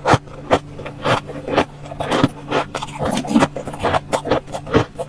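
Crunching bites of soft freezer frost taken from a metal spoon, then the spoon scraping frost off the freezer wall: a run of quick, uneven crunches and scrapes.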